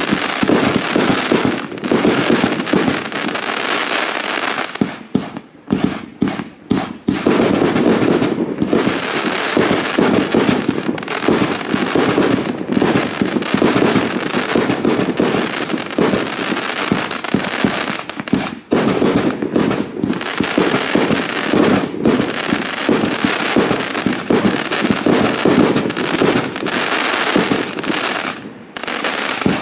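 Funke Chrys-Rain Blue 100-shot, 30 mm fireworks cake firing: a rapid, near-continuous stream of launches and bursts, thinning briefly about five seconds in and again near the end.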